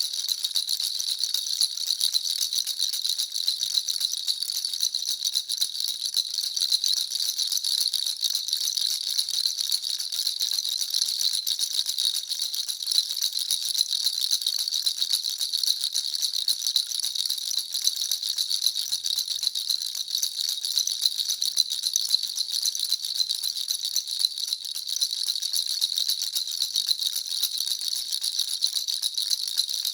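Baby rattle (jhunjhuna) shaken without pause, giving a dense, steady, high-pitched jingling rattle.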